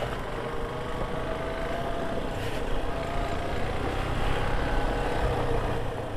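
Motorcycle engine running while riding, its note drifting slowly upward over the first couple of seconds, over a steady rushing noise.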